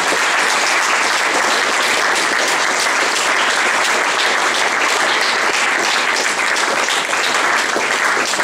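An audience applauding, steady and loud.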